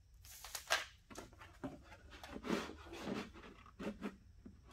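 Handling noises: a stiff black plastic panel rubbed and pressed into place against a center console, a string of short scrapes and knocks.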